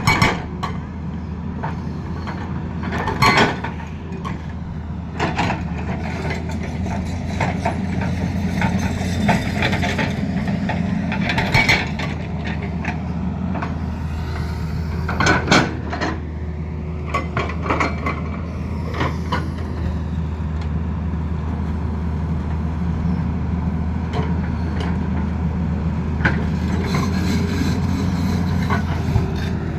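Tata Hitachi excavator's diesel engine running steadily, with a few sharp knocks or clanks at irregular moments: near the start, about three seconds in, and around twelve and fifteen seconds in.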